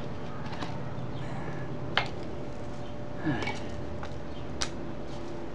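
A few sharp light clicks and knocks of plastic plant pots and seedlings being handled during repotting, over a steady background hiss. The sharpest click comes about two seconds in, and others follow about a second apart.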